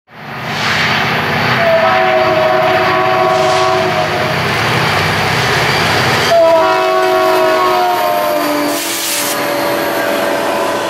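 Diesel freight locomotive's multi-chime air horn sounding twice: a blast of about two seconds, then a longer one starting about six seconds in. Under it, the rumble of the approaching locomotives.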